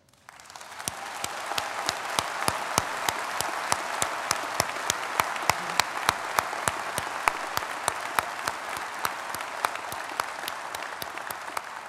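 An auditorium audience applauding, building up over the first second and easing off near the end. One pair of hands close to the microphones claps sharply and regularly above it, about three times a second.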